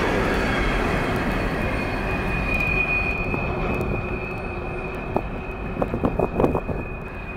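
Freight train of coal hopper cars rolling past and moving away, its rumble slowly fading, with a steady high-pitched wheel squeal. A few short sharp sounds near the end.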